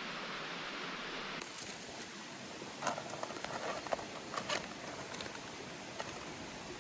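A steady rushing hiss stops abruptly about a second and a half in. It gives way to quieter rustling with a few sharp clicks and scrapes.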